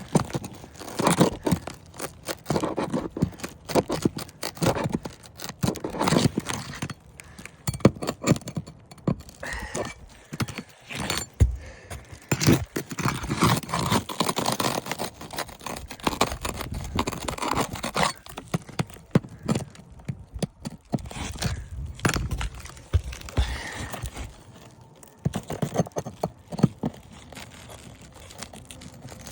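Metal pry bar scraping and knocking against asphalt roof shingles in irregular strokes as a stubborn roofing nail is worked loose.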